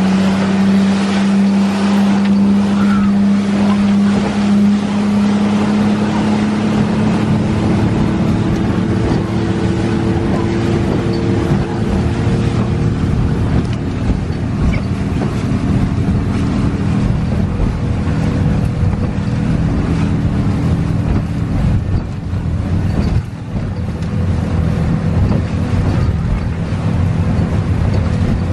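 Motorboat running at speed across choppy water: a steady engine drone under the rush of wind and water, with spray and small waves slapping the hull. The engine note climbs slightly at the start, then holds.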